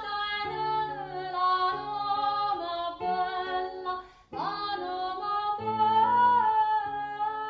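A woman singing a traditional southern Italian devotional folk song in long, high held notes, accompanied by plucked classical guitar. The singing stops briefly about four seconds in, then resumes.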